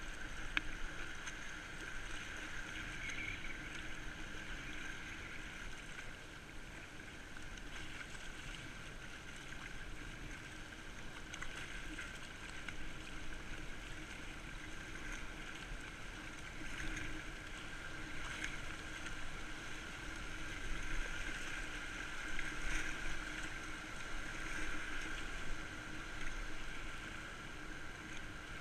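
Fast, high river water (about 55 cubic metres per second) rushing steadily past a kayak hull, with now and then a paddle stroke in the water, picked up by a GoPro on the boat.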